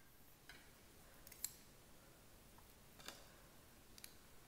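Near silence: quiet room tone with a few faint, light clicks, the clearest about a second and a half in.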